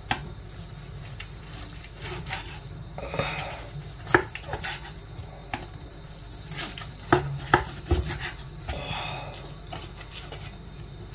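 Kitchen knife slicing a roast stuffed tenderloin, with irregular sharp knocks and clinks of the knife and kitchenware.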